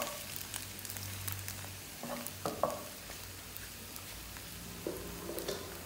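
Scrambled eggs sizzling softly in oil in a non-stick frying pan, with a few light taps and scrapes of a wooden spatula against the pan as the eggs are pushed around.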